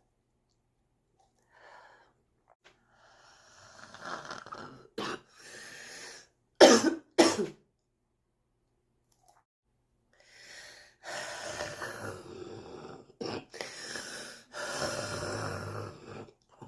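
A person's harsh smoker's cough, in two bouts: a few short, sharp coughs with long, noisy breaths drawn between them.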